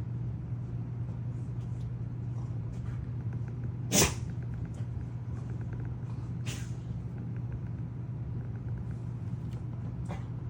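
Elegoo Centauri Carbon 3D printer running with a steady hum and faint ticking. A brief sharp hiss comes about four seconds in, and a softer one a couple of seconds later.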